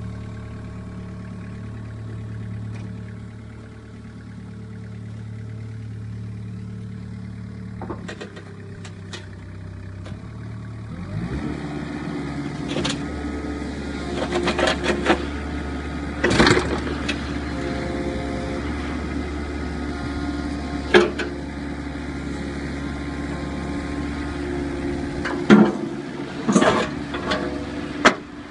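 Hitachi ZX-30 mini excavator's diesel engine running steadily, then picking up in speed and load about eleven seconds in as the hydraulics are worked. Sharp metal clanks from the machine come several times after that.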